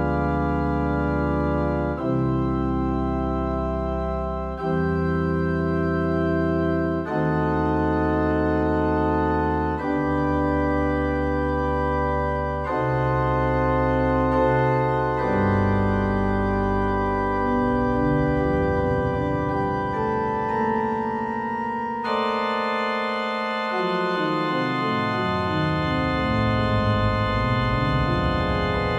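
Electronic organ playing an improvised piece: held chords that change every two to three seconds, then from about halfway a bass line stepping downward, with brighter, fuller chords coming in about three-quarters of the way through.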